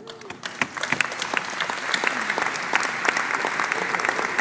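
Audience applauding at the end of a speech, the clapping swelling over the first second or two into steady, dense applause.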